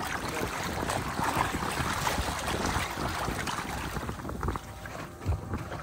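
Wind noise on the microphone and splashing water from a boat under way at sea.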